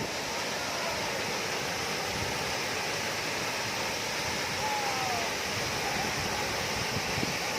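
Steady rushing of a waterfall, with a few faint short whistled glides partway through.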